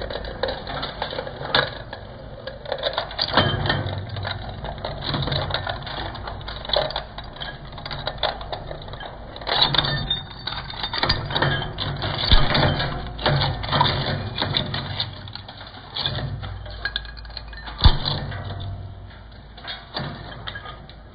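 Twin-shaft shredder's cutter discs crunching an LED lamp to pieces: irregular sharp cracks and crunches over the steady low hum of the running drive. The cracking dies away near the end as the last fragments pass through.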